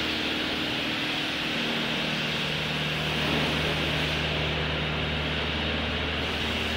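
Automatic drive-through bus wash running as a bus enters: a steady rushing hiss from the wash, with a low steady hum underneath.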